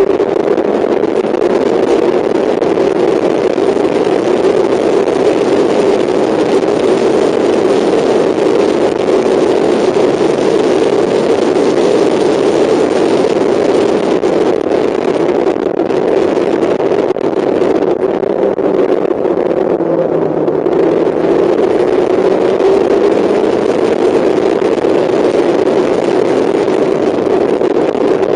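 Mazda MX-5's four-cylinder engine running hard under racing load, heard from inside the car, its note drifting slowly up and down with a brief dip about 17 seconds in.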